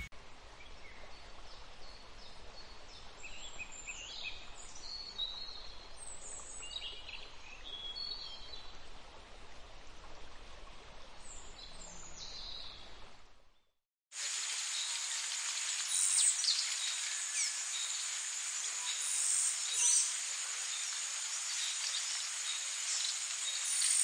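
Forest ambience: scattered short bird chirps over a faint hiss. It breaks off for a moment a little past halfway, then returns as a louder steady high insect drone with more chirps.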